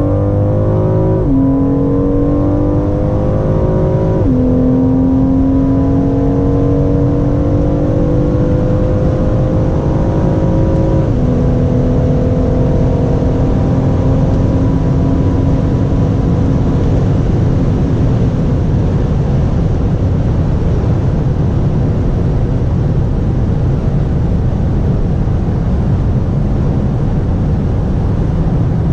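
BMW M760Li's 6.6-litre twin-turbo V12 accelerating hard through the gears. Its note climbs and drops at upshifts about a second in, about four seconds in and about eleven seconds in. As the car nears top speed, the engine note fades into a steady rush of wind and road noise.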